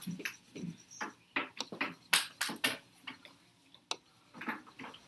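A stylus scribbling back and forth on an interactive touchscreen, a run of quick, irregular scratches and taps as a circle is coloured in.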